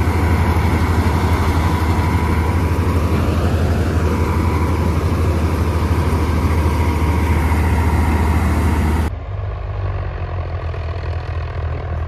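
Preet combine harvester running close by while unloading grain through its auger, a loud steady drone with a thin steady whine. About nine seconds in it cuts suddenly to the quieter diesel engine of a Swaraj 855 tractor pulling a fully loaded grain trolley in low gear.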